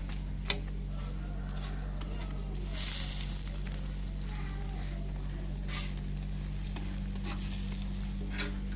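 Oil sizzling on a hot griddle as paratha and omelette fry, over a steady low hum. A sharp click comes about half a second in, and the sizzle surges louder around three seconds in and again near the end.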